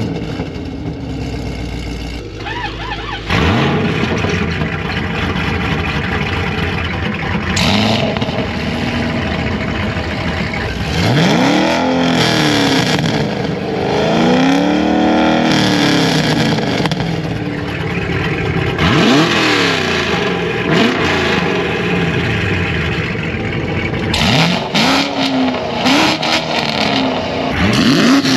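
GM small-block V8 engines idling and being revved, several blips where the engine note climbs and falls back to idle, one after another.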